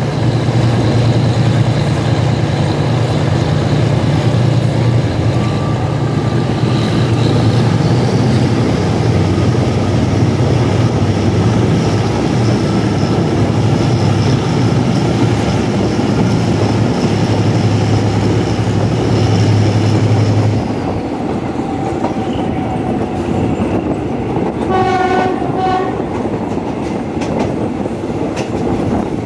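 A moving train's wheels rolling and clattering on the track, heard from a carriage window, over a deep steady hum that drops away about 20 seconds in. Near the end a short pitched signal tone, like a horn, sounds in brief pulses.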